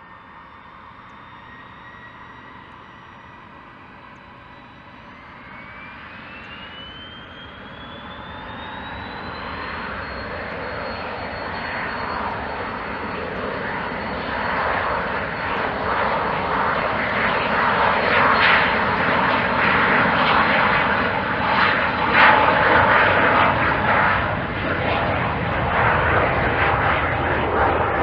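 Pilatus PC-24's two Williams FJ44-4A turbofans spooling up to takeoff thrust: a whine rises in pitch about five seconds in and then holds steady, while the jet noise grows steadily louder through the takeoff roll and lift-off.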